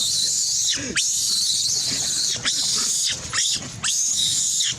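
Macaques screaming: a string of shrill shrieks, one after another with short breaks, each sliding down in pitch.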